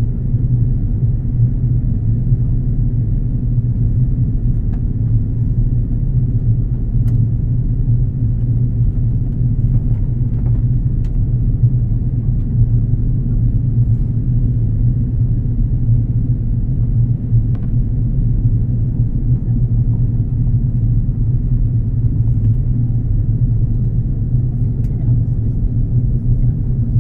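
Steady low rumble inside the cabin of an Airbus A330 airliner: engine and airflow noise heard from a window seat, even in level throughout, with a few faint clicks.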